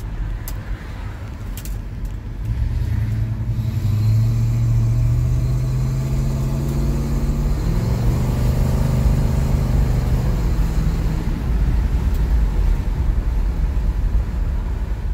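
Mid-1960s Buick's engine and road rumble heard from inside the cabin while driving. The engine note climbs as the car accelerates for several seconds, changes about eight seconds in, then eases off around eleven seconds into a steady cruise.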